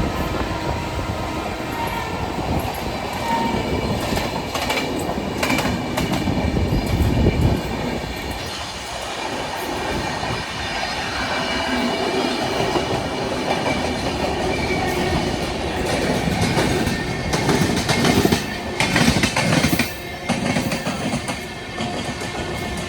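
Train running at speed, heard from on board, with wheels clattering over rail joints and a steady rumble. There is a run of louder sharp knocks near the end.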